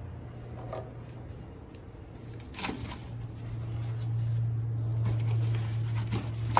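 Toshiba MM-EM25P solo microwave oven running, a steady low hum that grows louder, with a few light ticks and a sharp click near the end.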